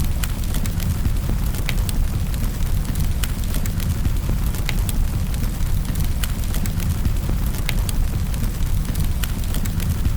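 Wood fire in a fireplace crackling, with irregular sharp pops over a steady low rumble, mixed with falling rain.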